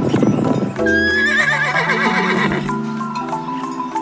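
A horse whinnying: a high, quavering neigh starting about a second in, over background music with steady held notes.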